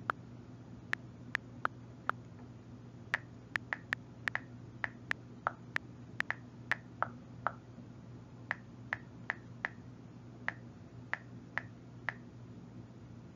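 iPad on-screen keyboard key clicks, irregular short ticks as a subject line is typed, stopping about twelve seconds in. A faint steady low hum runs underneath.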